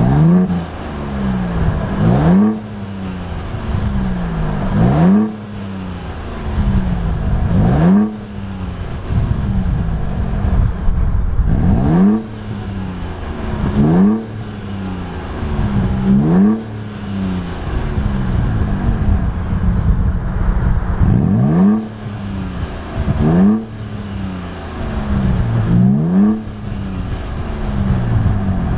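Ford Bronco Raptor's twin-turbo 3.0-litre V6 being blipped over and over through its exhaust. Each rev rises quickly in pitch and falls back, one every two to three seconds, in a series of cut-together clips.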